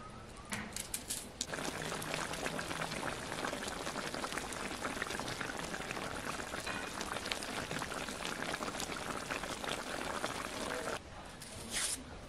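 Goose pieces boiling in a large cast-iron kazan over a fire: a dense, steady crackle of bubbles that starts suddenly about a second and a half in and cuts off about a second before the end.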